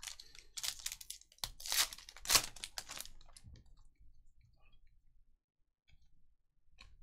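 Foil wrapper of a Panini Contenders football card pack crinkling and tearing as it is opened and the cards pulled out, with loud crackling over the first three seconds. Then softer rustling and a few light clicks as the cards are slid through the hands.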